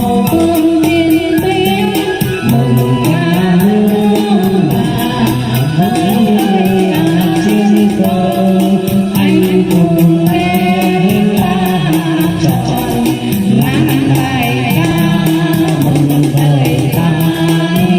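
Vietnamese quan họ folk song from Bắc Ninh: a voice singing a wavering, ornamented melody over instrumental accompaniment with a steady beat.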